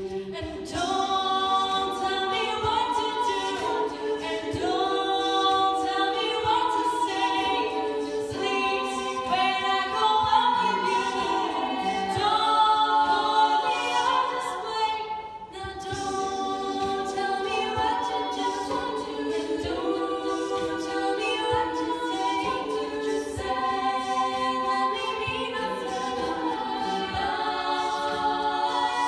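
All-female a cappella group singing in close multi-part harmony, with no instruments, into microphones. The voices dip briefly about halfway through, then carry on.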